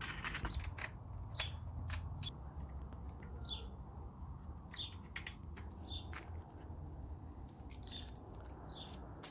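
Scattered light clicks at uneven intervals, with a small bird chirping briefly every second or so.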